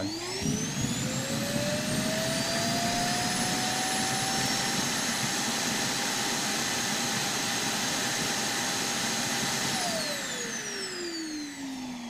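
Roomba i7+ Clean Base emptying the robot's bin: its suction fan spins up with a rising whine and runs quite loud and steady, rushing air through the evacuation port into the bag. Near the end it winds down, the whine falling in pitch.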